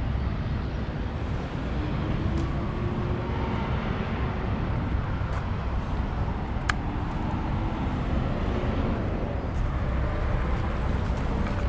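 Steady low rumble of road traffic and vehicle engines, with one brief high rising chirp about two-thirds of the way in.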